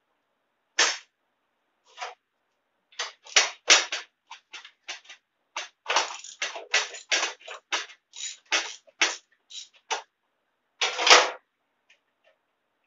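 Hand tools and metal parts being worked at the tractor's frame: a run of short, irregular clicking and rattling bursts, the longest and loudest near the end.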